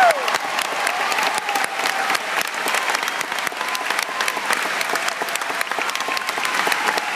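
Large crowd applauding steadily, with a few voices cheering over the clapping.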